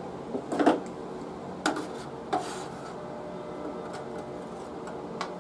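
Sharp metallic clinks and taps of pliers and cast lead scraps on an aluminium plate under a bottom-pour lead-casting pot. The loudest cluster comes about half a second in, with single clinks near two seconds and near the end. A steady low hum runs underneath.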